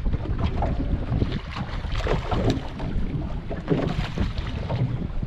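Wind buffeting the microphone: a steady low rumble with uneven gusts.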